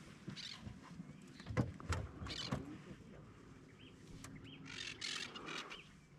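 Birds chirping faintly outdoors, with scattered light clicks and knocks and a brief hiss about five seconds in.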